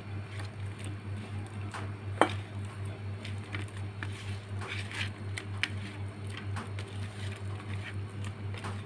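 Fingers kneading flour and spice powders with curd into a thick paste in a steel plate: soft wet squishing and patting, with small ticks of fingers against the steel and one sharper click about two seconds in. A steady low hum runs underneath.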